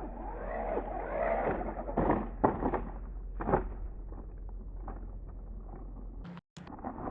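The small electric motor of a 1:18-scale RC truck, overvolted on a 7.4 V two-cell battery, whines up and down as the truck drives over rough ground. The wheels and chassis knock as it bounces, loudest three times between about two and four seconds in. The sound cuts out for a moment near the end.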